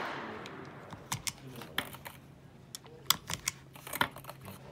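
Sharp clicks at uneven intervals as .40 S&W cartridges are pressed one by one into an HK USP pistol magazine. It opens on the fading echo of a loud bang.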